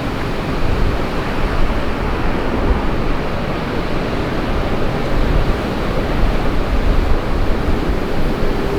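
Strong gusty wind buffeting the microphone, a loud rumbling roar that surges and falls every second or so over a steady hiss.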